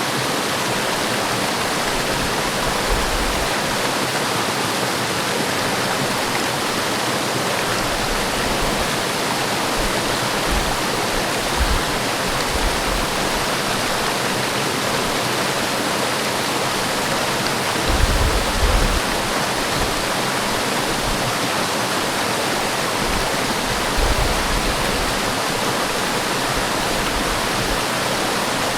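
Forest waterfall rushing steadily, a dense even hiss of falling water. A few brief low rumbles come through, the loudest about eighteen seconds in and again near twenty-four seconds.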